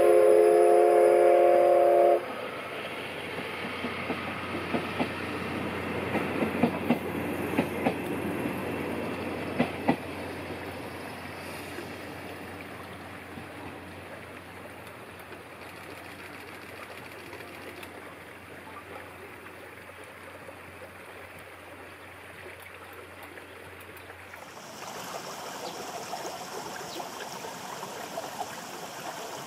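Steam whistle of a C11 tank locomotive blowing a steady chord, cut off sharply about two seconds in. The train then rolls past with irregular wheel clicks and clanks, fading away. Near the end a steady hiss takes over.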